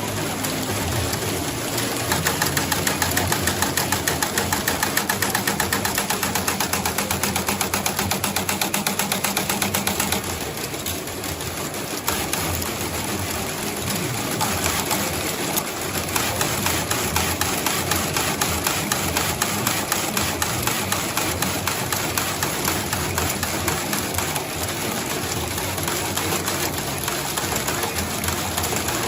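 Glove sewing machine running at speed, its needle strokes making a rapid, even stitching rhythm. The rhythm slackens briefly about ten seconds in, then picks up again.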